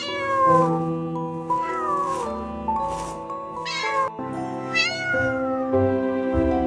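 Cat meowing four times, each a short call that falls in pitch, over steady background music.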